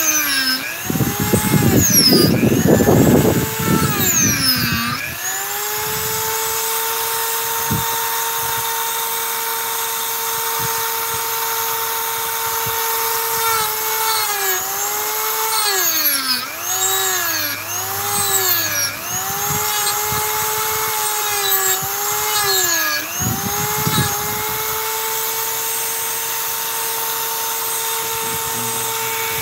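Dremel rotary tool carving wood at high speed: a steady whine that sags in pitch and recovers each time the bit bites into the wood. Heavy rasping grinding comes a second or so in and lasts about three seconds, and the whine dips again several times in the middle.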